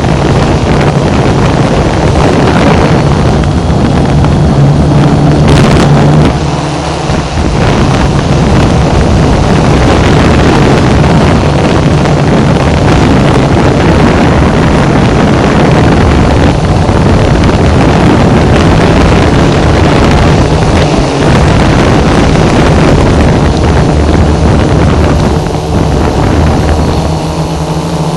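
F550 hexacopter drone's electric motors and propellers droning loudly in flight, with a steady low hum that shifts a little in pitch, heard close up from the onboard camera and mixed with wind buffeting the microphone. The level dips briefly about six seconds in.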